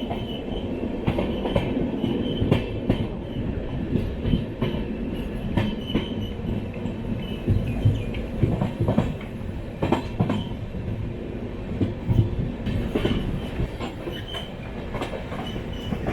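Passenger train coach running on the track: a steady rumble with irregular clattering of wheels over rail joints and points, and a faint, intermittent high wheel squeal.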